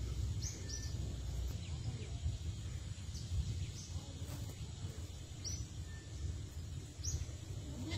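Outdoor wind rumble on the microphone, with short high bird chirps every second or two.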